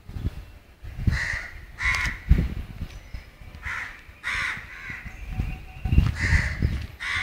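Crows cawing: about six short harsh caws, mostly in pairs. Under them runs an irregular low rumble with thuds, which is the loudest sound.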